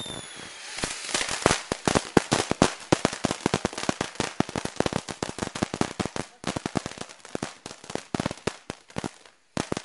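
Ground fountain firework spraying sparks with dense, irregular crackling pops, many a second. A falling whistle dies away in the first half second, and the crackling briefly stops near the end before starting again.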